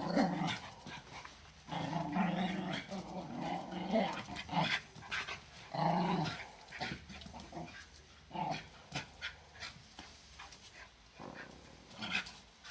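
Two 13-month-old Patterdale terriers growling as they play-fight over a chew stick. The growls come in rounds: one long growl of a few seconds near the start, then shorter growls with brief scuffling noises between them.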